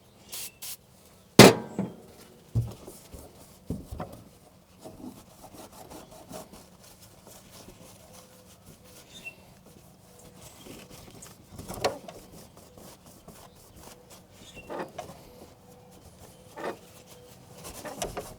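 Rubbing and scraping as the truck door's handle-mounting surface is cleaned of old grime for the new gasket, with scattered knocks; a sharp knock about a second and a half in is the loudest sound.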